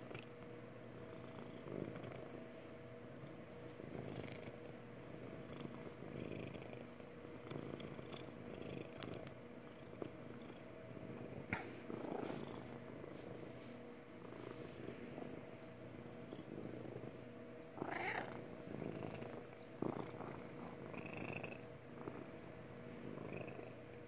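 Long-haired tortoiseshell cat purring steadily while being stroked: a contented, happy purr that swells and eases about every two seconds with her breathing. A few brief soft noises cut in, the loudest about eighteen seconds in.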